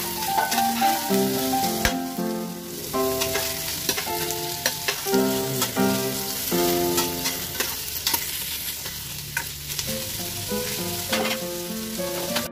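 Shredded chicken sizzling in hot oil in a stainless steel pot, with a metal spoon scraping and clicking against the pot as it is stirred. A soft melody of background music plays underneath.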